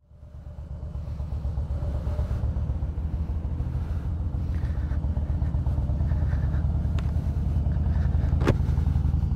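Harley-Davidson Fat Boy's V-twin engine running steadily as the motorcycle is ridden, fading in at the start. A single sharp tick comes near the end.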